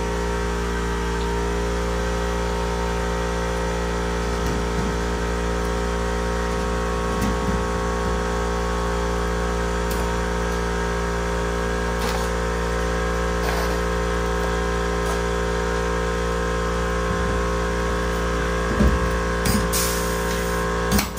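A machine running with a steady, even hum made of several constant tones, with a few light clicks and taps over it.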